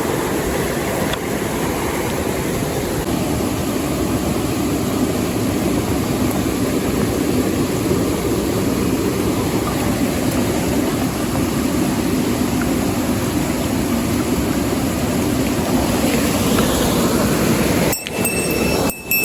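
Mountain stream water rushing steadily. Near the end the sound breaks off in a few sharp dropouts, and a short high tone comes in.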